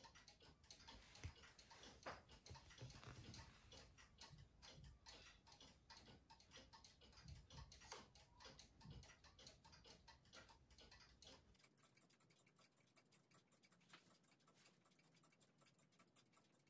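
Near silence with the faint, steady ticking of a clock in the room.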